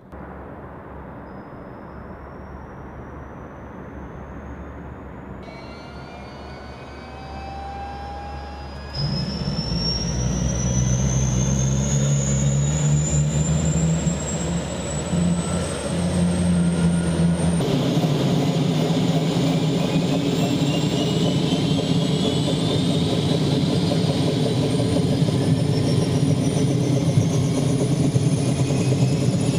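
OH-58 Kiowa Warrior helicopter starting up: its turboshaft engine whines and keeps rising in pitch as it spools up, with the rotor's low beat building underneath. It gets louder in abrupt steps about nine and about eighteen seconds in.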